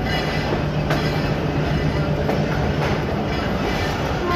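Pakistan Express passenger train rolling into a station: a steady rumble of the carriage on the track, with a low hum through the first three seconds and a few sharp clacks from the wheels.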